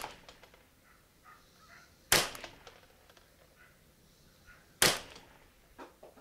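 Kidd Supergrade 10/22-pattern semi-automatic .22 LR rifle firing two single shots, about two seconds in and again nearly three seconds later, each with a short ringing tail. This is slow, aimed fire for a group.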